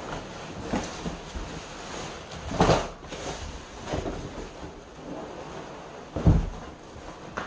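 Rustling and knocking as a leather sofa's plastic wrap and cardboard packaging are handled, with a few separate bursts and a heavy low thump about six seconds in.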